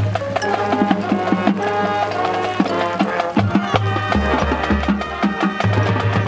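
High school marching band playing: held brass and woodwind chords over a low bass line, with drumline and front-ensemble percussion adding many sharp hits in rhythm.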